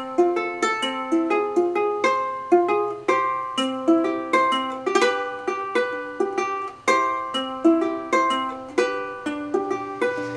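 Ukulele fingerpicked in a steady arpeggio, single plucked notes ringing out and fading one after another, as the instrumental intro to a song.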